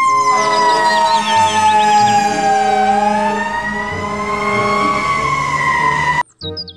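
Fire engine siren wailing: one loud tone that falls slowly in pitch, rises again and levels off, then cuts off abruptly near the end.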